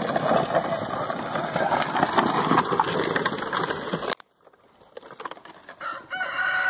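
Hard plastic wheels of a toy ride-on car rumbling and rattling as it rolls down a rough dirt track, cutting off abruptly about four seconds in. After a short quiet, a rooster crows near the end.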